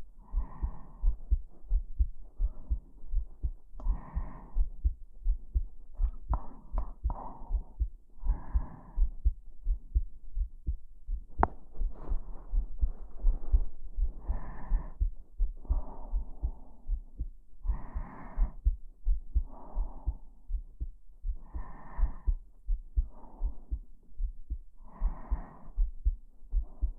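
A person's heartbeat picked up by a microphone held close against the chest, beating steadily in low thumps. Soft close-up breathing in and out rises and falls over it every second or two.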